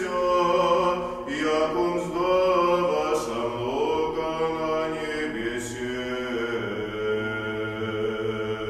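Male voices singing Byzantine liturgical chant, a melody moving over a steady held low note.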